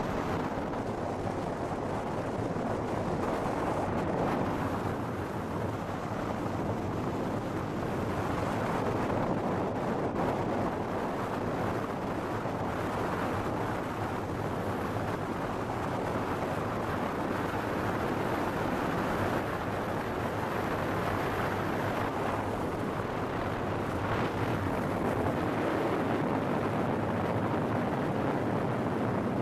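Steady road and wind noise from a moving car, heard from inside the car.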